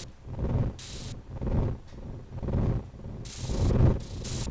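Horror sound effects: a low throbbing pulse repeating about once a second, with short bursts of hiss every so often.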